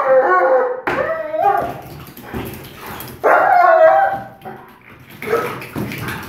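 German Shepherd barking and yipping in high-pitched, excited calls, in a loud bout at the start and another about three seconds in, directed at a decoy in a bite suit.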